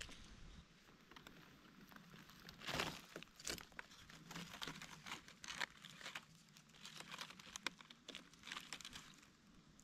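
Dry leaf litter crackling and rustling in irregular small crunches as someone moves through it. A louder, denser rustle comes about three seconds in.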